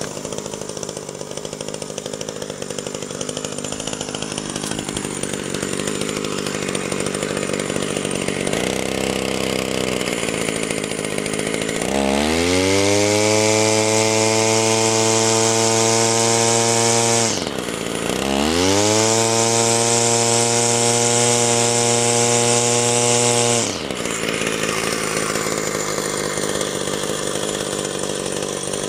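Two-stroke engine of a 1978 Stihl FS-150 brushcutter idling, blipped once, then twice revved up to a steady high speed for about five seconds each before dropping back to idle, on its first test run after a clutch repair.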